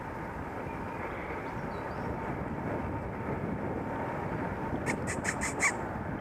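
Steady rushing noise of wind on the microphone and tyres on the road from a moving bicycle. About five seconds in comes a quick run of about six sharp clicks.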